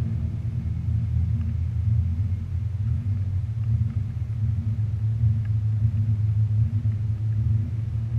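Rally car's engine idling steadily, heard from inside the stripped, roll-caged cabin.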